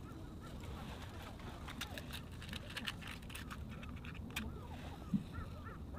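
Light metallic clicks and taps of a hurricane lantern being handled, over a low outdoor rumble. A run of short bird calls starts near the end.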